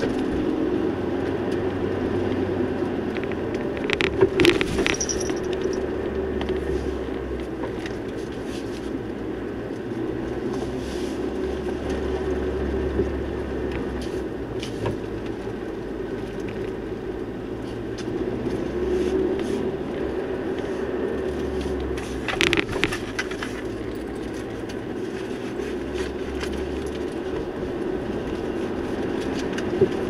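A vehicle drives along a forest road with steady engine and road noise. Short clattering knocks come about four seconds in and again about twenty-two seconds in.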